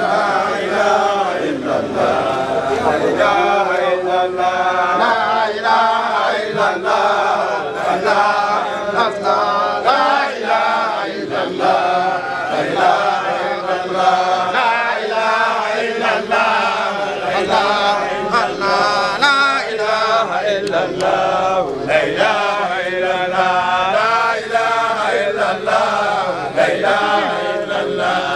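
A group of voices chanting a devotional song together, sustained and wavering in pitch.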